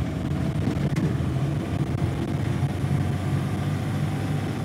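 Classic Lada four-cylinder engine converted from petrol to turbodiesel, pulling under heavy throttle as the car accelerates, its note fairly steady.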